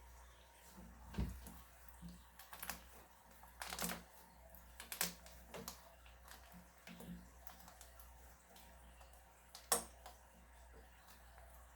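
Slime being squished and worked by hand, giving irregular small clicks and wet pops, the loudest pop near the end.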